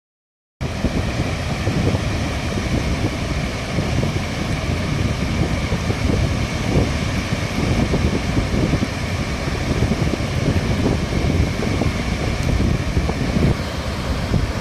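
Steady, loud rushing roar of a large waterfall, Chitrakoot Falls, starting about half a second in.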